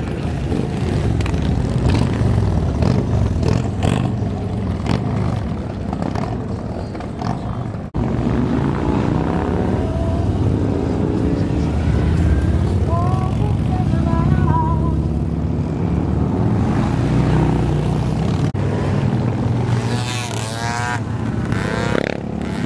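Motorcycles, mostly cruisers and touring bikes, rumbling past in heavy street traffic, their engine pitch rising and falling as they go by. Near the end comes a rapid up-and-down whine.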